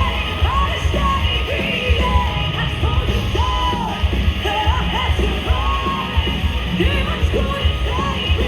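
Live hard rock band playing loud, with a heavy, booming low end and yelled vocals over the top.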